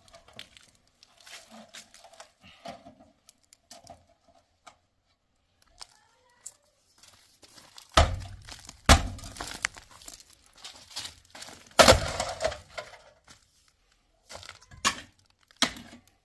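Irregular knocks and clatter of objects being handled, with three loud sharp bangs about halfway through and a few more near the end.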